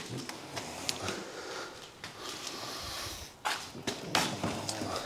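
Handling noise from work on a car's interior door trim: scattered light clicks and rustles, with two sharper knocks about three and a half and four seconds in.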